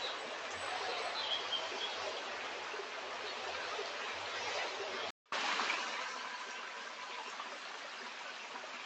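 Stream water running with a steady rush. The sound cuts out completely for a moment about five seconds in, then comes back slightly louder. There is a faint, short high glide a little over a second in.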